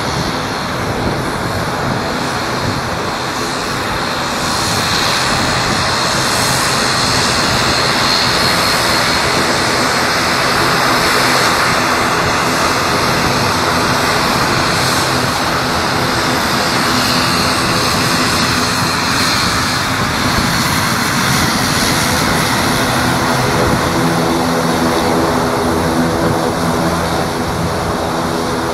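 ATR 72-600's two Pratt & Whitney PW127 turboprop engines running as the airliner taxis close by and turns around on the runway: a steady engine and propeller noise that grows louder a few seconds in, with a steadier propeller drone in the last part.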